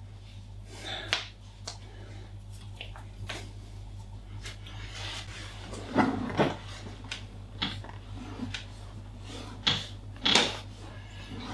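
Hands massaging and pressing into bare skin, with scattered short clicks and knocks, the louder ones about 6 and 10 seconds in, over a steady low hum.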